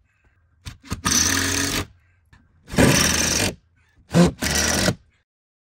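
Power drill run in short bursts of under a second each, stopping sharply between them, with quick trigger blips before the last burst.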